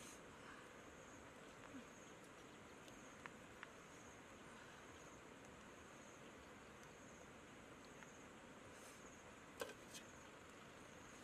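Faint insect chirping: a short high chirp repeating about once a second over near silence. A couple of sharp metallic taps near the end as metal tongs touch the cooking pot.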